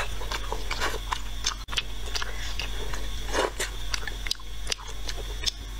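Close-up mouth sounds of eating rice noodles: wet chewing clicks, with a louder slurp about three and a half seconds in.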